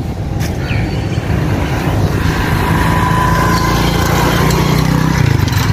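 A small motorcycle engine running steadily close by, its low hum changing note about five seconds in.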